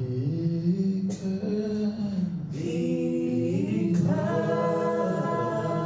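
Voices singing a slow worship song together without accompaniment, holding long notes that slide from one pitch to the next.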